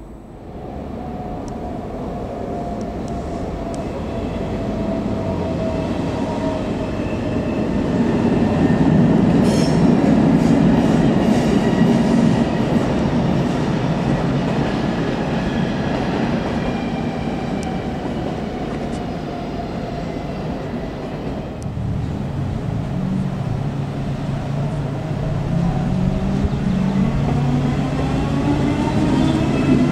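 Electric trains moving through a station. First comes a whine that falls slowly in pitch, with wheel clicks over the track for a few seconds. Then, from about two-thirds of the way in, coupled SBB RABDe 560 'Domino' multiple units pull away from a stop, their traction whine rising steadily in pitch as they accelerate.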